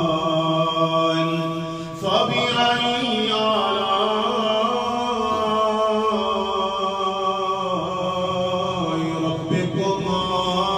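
A man reciting the Quran in a melodic, drawn-out tajweed style, holding long notes that bend slowly in pitch. A short breath break about two seconds in, then the line resumes.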